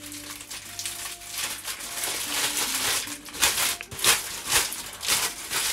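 Sheet of parchment paper being scrunched and crumpled in the hands: a continuous crackling rustle, with louder crinkles from about three seconds in. The paper is crumpled to make it soft and pliable.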